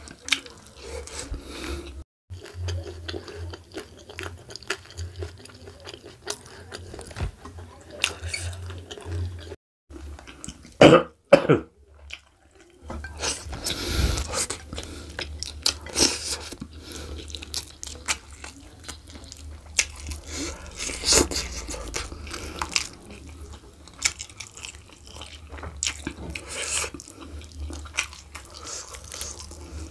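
Close-miked eating sounds of a man eating oxtail, rice and sambal with his hands: chewing, lip smacking and wet handling of the food, in many small clicks and smacks. About eleven seconds in come two short loud vocal noises.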